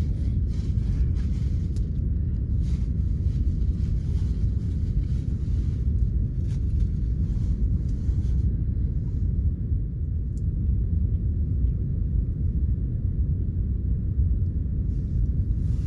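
Wind buffeting the microphone: a steady, heavy low rumble with no pitch to it.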